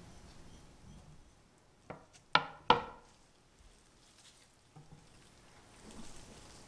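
A thin metal stirrer tapped against the rim of a glass beaker: three sharp taps, the second and third the loudest, each with a short ring. Faint handling sounds follow.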